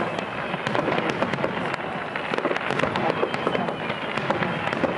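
Aerial fireworks display: a dense, unbroken crackling and popping of many shells and effects bursting at once.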